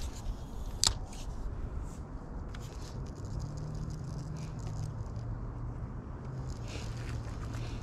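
A few sharp knocks and clicks of handling the camera and fishing gear, the strongest about a second in. From about three seconds in, a steady low hum from an unseen engine.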